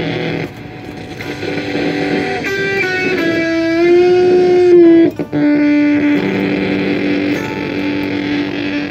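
Electric guitar played through a circuit-bent Joyo Classic Flanger pedal. It plays held notes and chords, with one note bent upward about halfway through, a brief break just after, then a long held note to finish.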